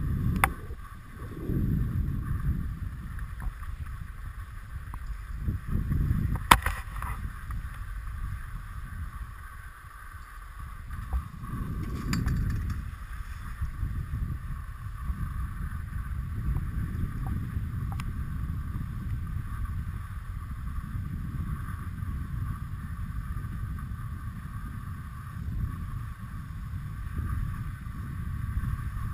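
Skis sliding over packed snow while being towed up a Poma surface lift, with a low, uneven rumble of wind on the microphone. There is a single sharp click about six and a half seconds in.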